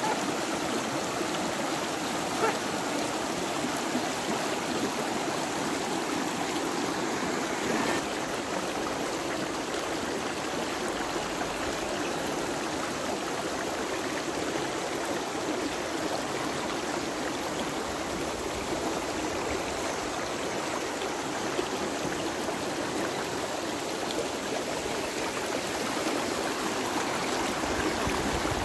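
Fast-flowing river water: a steady, even rush of the current.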